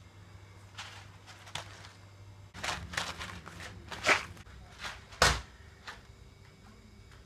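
Kitchen handling noises: a string of knocks and rustles as things are picked up and moved, with a sharper knock about four seconds in and a heavier thump just after five seconds.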